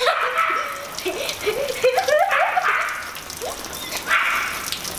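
Rain falling on a wet tiled terrace, with a run of short, rising high-pitched yelps about two seconds in.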